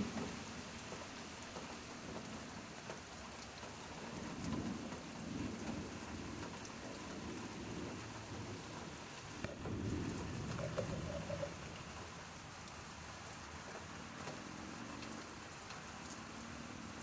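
Steady rain hissing, with low rolls of thunder about four seconds in and again near ten seconds.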